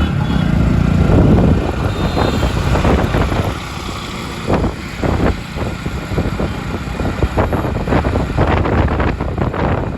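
Road traffic and a vehicle engine heard on the move, with a heavy low rumble in the first second or so. After that, irregular gusts of wind buffet the microphone.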